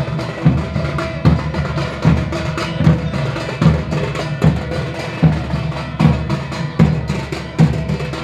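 Drums played in a steady rhythm: a heavy low beat a little more often than once a second, with lighter, sharper strokes between.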